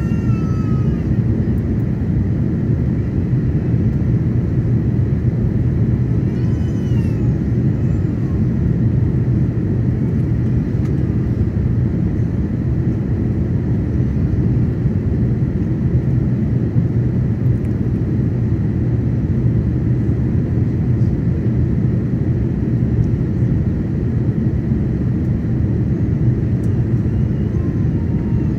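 Steady low rumble inside the cabin of an Airbus A330-900neo on final approach, made by its Rolls-Royce Trent 7000 engines and the airflow over the extended wing flaps, with a faint steady whine.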